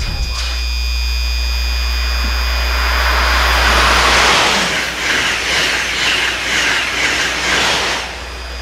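Amtrak Acela Express high-speed trainset passing at speed: a loud rushing whoosh that builds to a peak about four seconds in, then swells and dips several times as the cars go by, dropping off near the end. A steady low rumble runs underneath.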